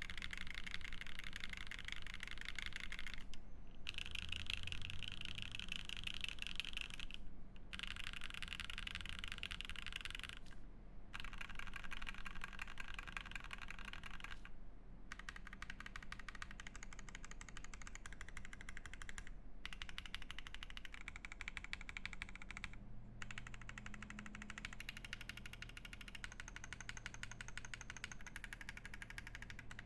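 Fast typing on a Matrix 6XV 2.0 Falcon mechanical keyboard with lubed Banana Split linear switches on an aluminium plate: a dense stream of key clacks, pausing briefly about every three to four seconds.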